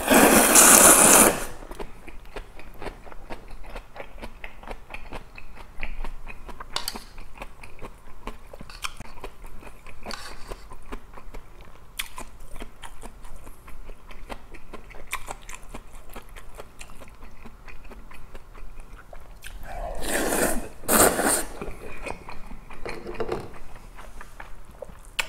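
Close-up mouth sounds of a man eating kongguksu (cold noodles in soybean broth). There is a long, loud slurp of noodles at the start and another pair of slurps about twenty seconds in, with wet chewing and small clicks between them.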